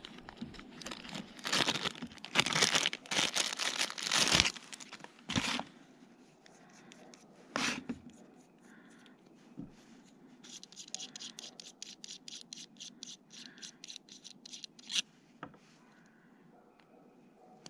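Thin plastic bag crinkling and tearing in loud, crackly bursts as a TPMS sensor is unwrapped by hand. Later comes a run of quick, faint ticks with a sharper click near the end.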